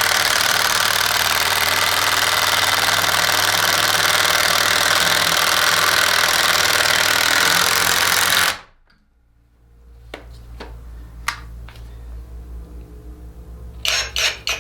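Two cordless brushless impact drivers hammering fasteners into a log at the same time, stopping abruptly about eight and a half seconds in. The Kobalt is set below its high speed setting. Afterwards there is a low hum and a few light clicks.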